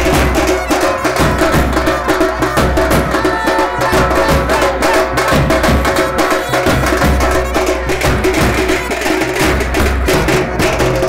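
A group of stick-beaten drums, big bass drums and metal-shelled side drums, playing a fast, dense rhythm with heavy low thuds. Steady held tones sound above the drumming.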